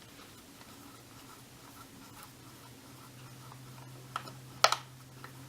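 Light ticking and scraping, then a few sharp small clicks about four and a half seconds in, as a jeweler's screwdriver works a hard-drive mounting screw out of a laptop.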